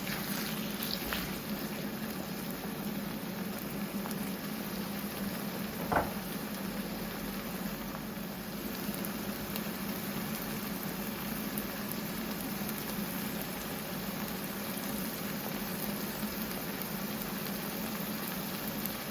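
Stew sauce bubbling and sizzling steadily in a cooking pot, with a single sharp knock about six seconds in.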